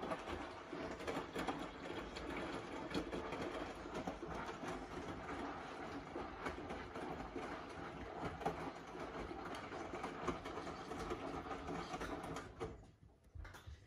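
Hotpoint front-loading washing machine with an inverter motor, its drum turning and tumbling wet laundry during the first rinse of a 90° whites programme. The drum stops near the end and the sound falls away sharply.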